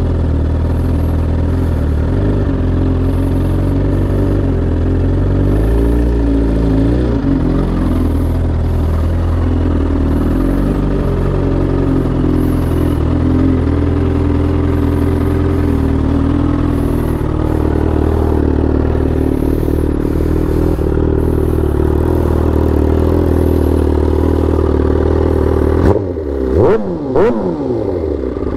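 Suzuki GSX-R 1000 K8's inline-four engine running under way, steady for most of the time, with a few quick rises and falls in pitch near the end as it is shifted or revved. The owner is chasing an irritating clatter that he suspects is a warped clutch basket.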